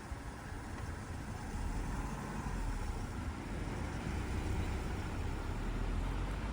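Low engine rumble of a heavy motor vehicle, growing louder about a second and a half in.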